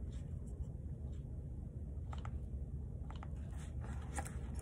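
Quiet room tone: a steady low hum with a few faint, scattered clicks and taps.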